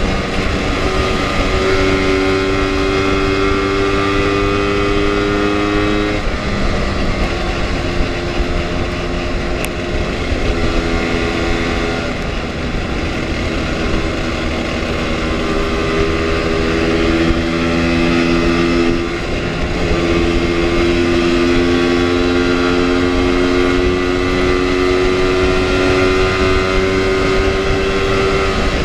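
Lambretta two-stroke scooter engine pulling along at road speed, with wind rushing past. The engine note climbs steadily, then drops at a gear change about six seconds in and again near nineteen seconds, when it briefly goes quieter.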